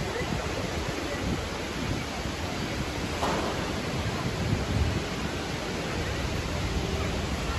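Steady, even hiss of city street ambience, with a brief faint sound about three seconds in.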